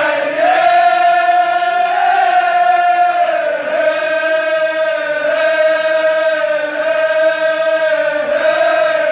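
Kashmiri marsiya elegy chanted by men's voices, drawn out in long held notes that waver only slightly in pitch.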